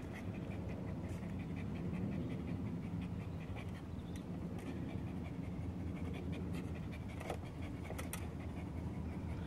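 Tugboat diesel engine idling: a steady low drone with a quick rhythmic chuffing over it.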